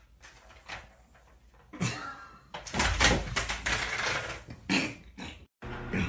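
Thumps and clattering as a cat jumps down among objects on a shelf and plant stand, a run of sharp knocks loudest about three seconds in, stopping abruptly near the end.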